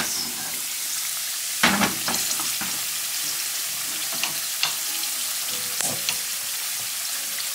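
Potato wedges frying in hot oil in a skillet: a steady sizzle with scattered crackles and pops, the loudest about two seconds in.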